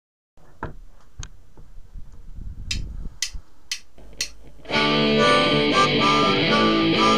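Punk rock band cover song starting up. Faint taps and low rumble lead into four sharp clicks about half a second apart, a count-in. About four and a half seconds in, the band comes in loudly with electric guitar and bass.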